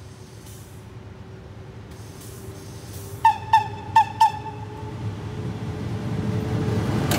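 An approaching train grows steadily louder. About three seconds in, a horn gives four short toots in two quick pairs, a friendly greeting from the driver.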